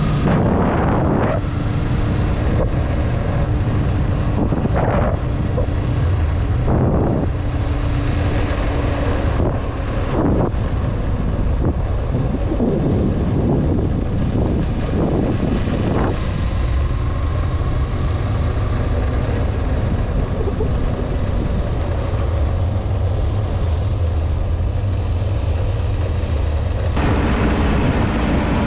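Wind buffeting the microphone over a motorcycle engine running steadily while riding. Near the end the sound grows fuller as the bike passes close by a truck.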